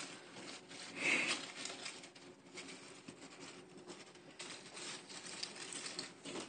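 Rustling and scratching on fleece bedding as a young squirrel tussles with a person's hand, louder for a moment about a second in.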